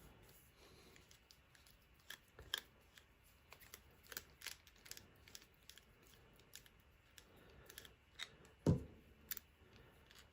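Small metallic clicks and scrapes of a screwdriver backing a screw out of an American 1100 padlock, with one louder knock near the end.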